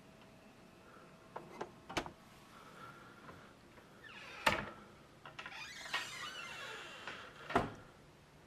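Minibar fridge door being pushed shut, with a few sharp clicks as the bottles in its door clink, then a couple of dull thumps with rustling between them.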